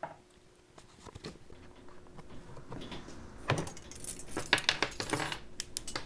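Light metallic clinks and rattles of hand tools and engine parts being handled, scattered at first and busier from about halfway through.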